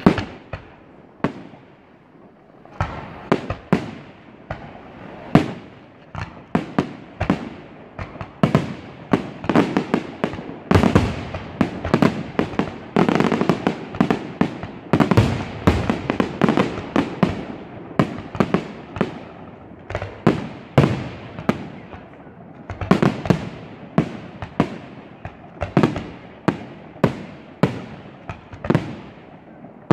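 Aerial fireworks shells bursting in a rapid series of sharp bangs: one loud bang right at the start, a short lull, then bursts coming thick and fast, often several a second.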